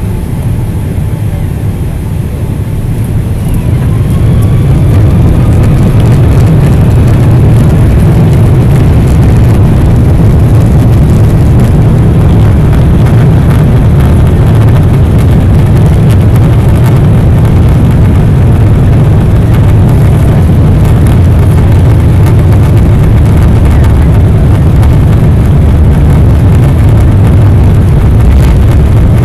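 Boeing 777-300's twin turbofan engines heard from inside the cabin, swelling over the first few seconds as they spool up to takeoff thrust, then a steady deep rumble through the takeoff roll.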